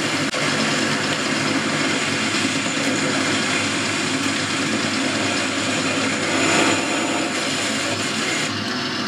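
Boxford lathe running under power with its tool taking a turning cut: a steady motor and gear hum under a hiss of cutting. The higher cutting hiss eases off near the end.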